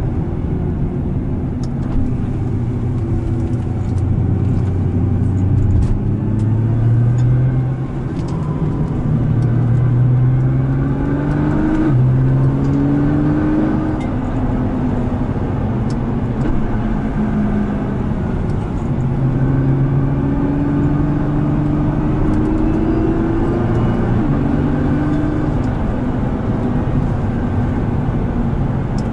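Nissan R35 GT-R's twin-turbo 3.8-litre V6 heard from inside the cabin under hard acceleration. The engine note climbs in pitch and drops sharply at each upshift, clearly about twelve seconds in and again near twenty-four seconds, over steady road and tyre noise.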